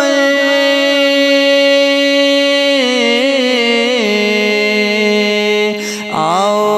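Male voice singing an Urdu naat, drawing a single syllable out into long held notes with small wavering ornaments. The held note steps down in pitch about four seconds in, and after a short breath near the end a new phrase begins.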